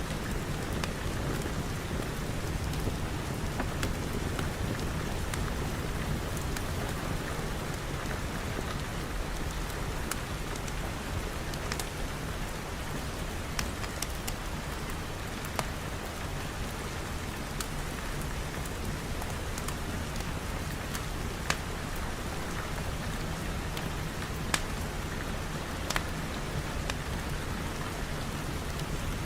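Steady rain falling, with a low rumble underneath and scattered sharp ticks or pops every second or two.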